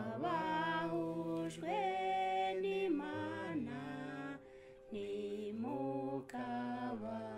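A voice singing long held notes with a slight waver, in phrases with a short break about four and a half seconds in, over a steady held tone underneath.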